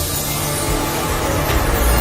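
Dense, steady soundtrack music, with a low drone that grows stronger near the end.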